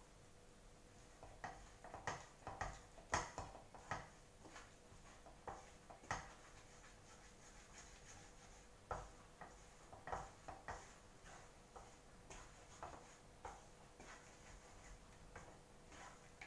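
Wooden spatula knocking and scraping against a frying pan as mashed potatoes are stirred and pressed, in irregular soft clicks and taps, busiest a couple of seconds in and again around the middle.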